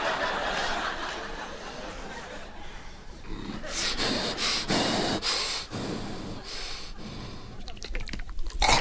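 A man making sound effects with his mouth into a microphone: a series of breathy huffs and hissing bursts, strongest in the middle and again near the end.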